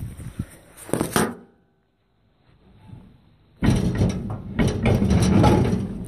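Handling noise from the camera being moved and covered: a couple of knocks in the first second and a half, then, after a brief silence, loud rubbing and scraping on the microphone through the second half.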